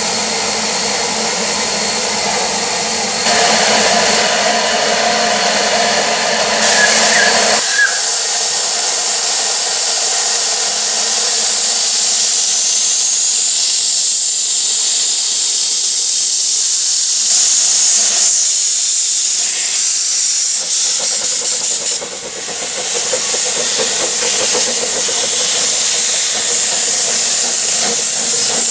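Steam steam locomotive, a double Fairlie, hissing loudly and steadily as it vents steam from its open cylinder drain cocks while moving off.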